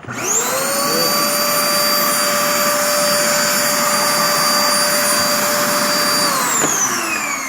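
Hitachi CV-W1600 1600-watt vacuum cleaner switched on for a test run after repair: its motor spins up within about half a second to a steady high whine, runs for about six seconds, then is switched off near the end and winds down, its pitch falling.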